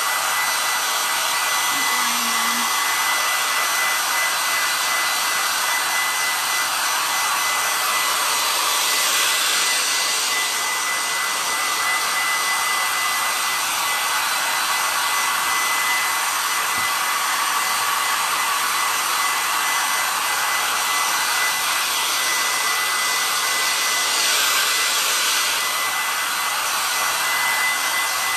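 Handheld hair dryer running steadily to dry wet water-based paint: a rush of blown air with a steady high whine from its motor.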